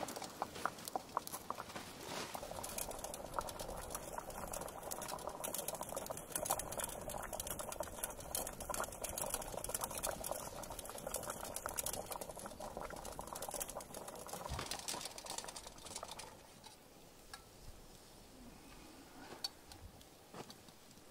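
Water at a rolling boil in a steel pot hung over a campfire, bubbling and spitting, with small crackles from the burning wood. About sixteen seconds in the sound drops off, leaving fainter crackling.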